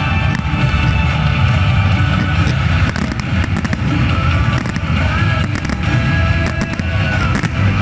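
Fireworks going off in a string of sharp bangs over loud music playing throughout.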